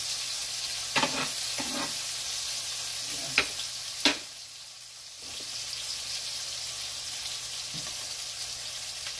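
Beef burger patties sizzling on a stovetop griddle pan, a steady high hiss. A few sharp clicks cut through it, the loudest about three and four seconds in.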